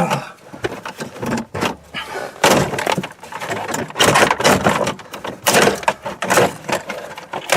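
Interior trim pieces of a car being grabbed and pulled out by hand: a run of clicks, knocks and scraping rattles as the parts work loose.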